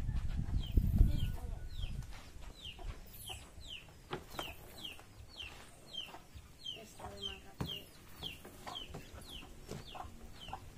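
A bird chirping over and over, short falling chirps about two a second. Underneath, a low rumble of handling in the first couple of seconds and a few sharp knocks as a wooden cart lid and a large box are moved.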